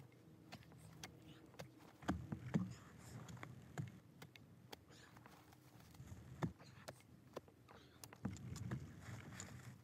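A spade being driven into soil and roots: scattered knocks and scrapes of the blade, with heavier dull thumps about two seconds in and again near the end.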